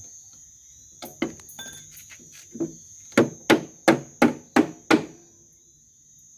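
Hammer tapping a small nail into a wooden beehive frame: a few scattered taps, then six quick, even strikes at about three a second.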